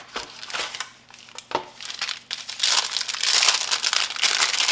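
Phone case packaging being opened by hand: a few light clicks and rustles, then continuous loud crinkling from about halfway in.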